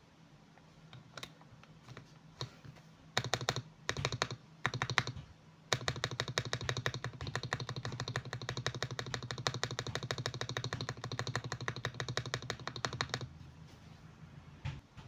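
Mechanical keyboard with lubed Akko switches being typed on: a few single key presses, then short bursts of fast typing, then a long run of rapid, even typing that stops about two-thirds of the way through, followed by a few scattered keystrokes.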